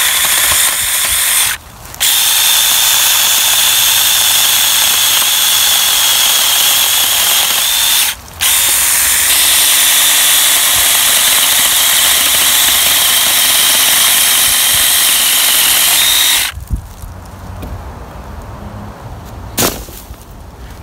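O-CONN 4-inch 24V cordless mini chainsaw running at a steady high whine while cutting through a dead dogwood branch, cutting out twice briefly. It stops about sixteen seconds in, and a single knock follows near the end.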